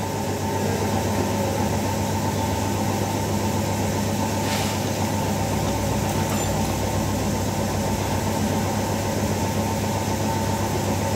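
Steady machine hum, with one faint click about four and a half seconds in.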